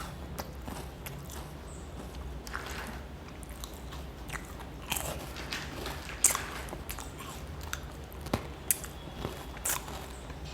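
Crunching and chewing on crisp chocolate-filled wafer pillows, with irregular sharp crunches that are stronger in the second half.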